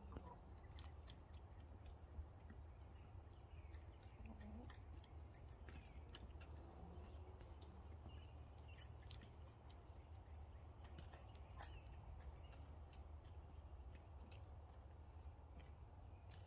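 Faint sounds of hens foraging: light taps and scratching with a few soft low clucks, and short high chirps that come every second or so at first and then now and again.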